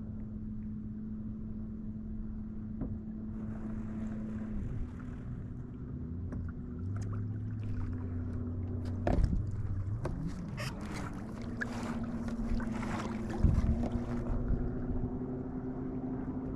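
Gear knocking and rattling on a kayak hull as the anchor is dropped, with the two loudest knocks about nine and thirteen seconds in, over a steady motor hum that dips and shifts pitch a few times.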